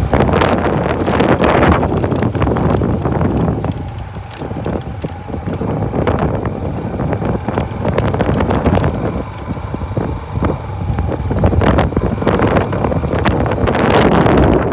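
Wind buffeting the microphone over a motorcycle engine running along a rough dirt track, with frequent knocks and rattles from the bumps.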